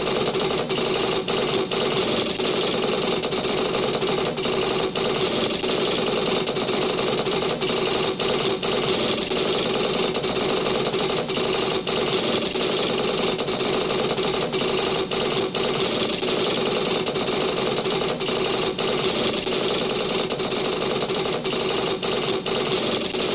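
Star Trek original series sound effect: a steady, dense mechanical hum with a fast fluttering texture. It stops abruptly at the end.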